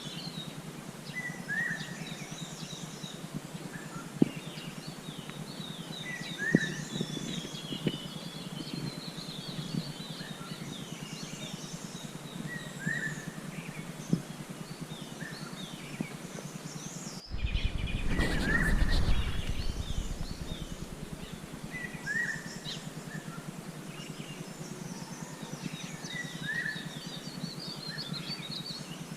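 Several wild birds calling and singing over a steady background hiss, with one short call repeated every few seconds among higher twittering. A little past halfway, a louder rush of noise lasts about three seconds.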